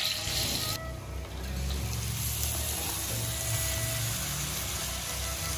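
Ground chili paste hitting hot oil in a wok and sizzling steadily, starting about a second in.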